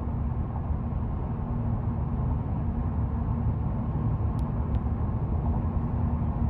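Steady low rumble of a car's engine and cabin noise, heard from inside the car.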